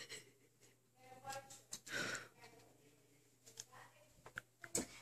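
Faint murmured voice and a breathy sigh about two seconds in, with a few small clicks near the end.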